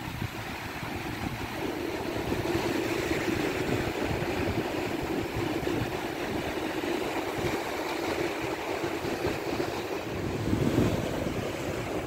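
Small sea waves breaking and washing up a sandy beach in a steady rush of surf, with wind buffeting the microphone.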